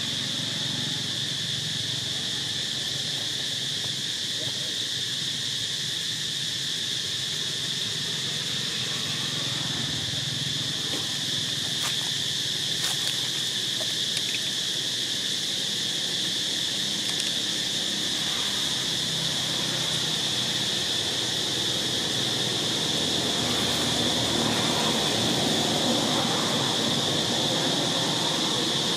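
Steady high-pitched drone of an insect chorus, with a couple of faint clicks near the middle.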